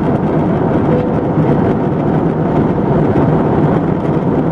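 Steady jet airliner cabin noise heard from a window seat: the even rush of engines and airflow during the descent toward landing.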